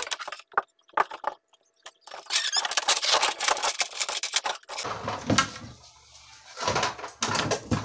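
Plastic housing of a spin dryer squeaking and scraping as it is worked loose and lifted off the base, with a few sharp knocks at first and lower hollow bumps later on.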